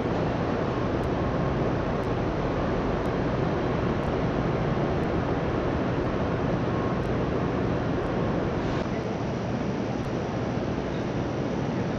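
Steady rushing city ambience with no clear single source, with a faint click and a slight drop in level about nine seconds in.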